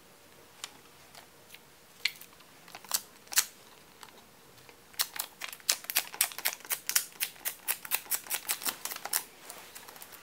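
Dust-removal sticker dabbed again and again on a phone's glass screen, each touch lifting off with a sharp little click. A few scattered clicks at first, then a fast run of them for several seconds about halfway in.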